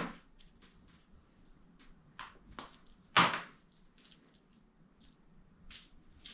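A few short knocks and clicks, the loudest about three seconds in, against a quiet room.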